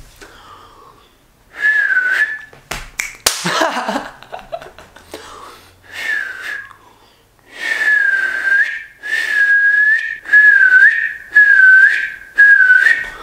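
Finger whistle blown by a beginner with two fingers in his mouth: shrill blasts near 2 kHz with breathy air around them. One blast comes about two seconds in, then a loud run of five in the second half, each dipping briefly in pitch.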